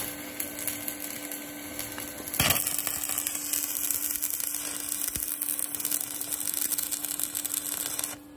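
Stick (arc) welding on a steel tractor dozer blade: the electrode's arc crackles and sizzles steadily, louder from about two and a half seconds in.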